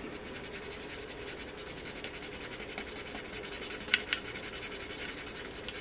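Fiberglass scratch brush scrubbing battery-leak corrosion off a circuit board's copper traces, back towards bare copper: a fast, even scratching, with two sharper clicks about four seconds in.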